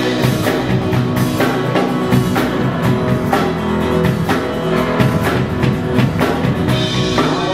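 A church worship band playing an instrumental passage between sung lines: drum kit keeping a steady beat about twice a second, with guitar and bass.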